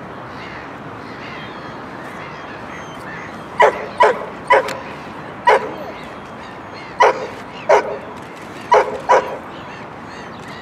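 A dog barking: about eight short, sharp barks, singly and in quick pairs, starting about three and a half seconds in, over a steady outdoor hiss.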